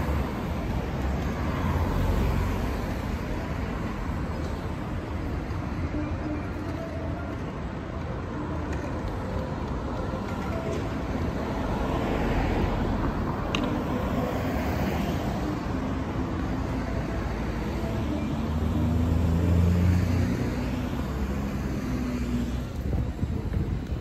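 City street traffic: a steady noise of cars passing. A louder low engine sound swells about two seconds in, and a louder one still passes around nineteen to twenty-one seconds in.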